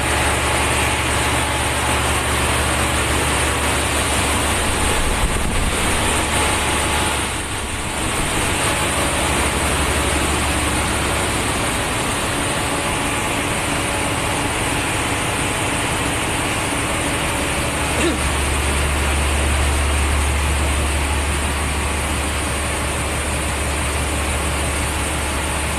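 Loud, steady machinery noise in a ship's engine room: a constant low hum under an even roar of running equipment.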